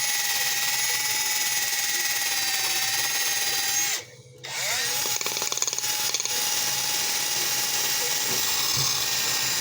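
Electric drill spinning a brass wire wheel against a cast iron kettle to scrub off rust: a steady whir with a scratchy hiss. It stops briefly about four seconds in, then spins back up and runs on.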